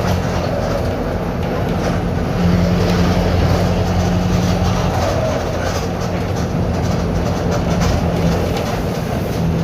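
Mercedes-Benz OF-1721 BlueTec 5 bus's four-cylinder diesel engine running steadily through a holed exhaust, giving a continuous low drone with light rattling clicks over it.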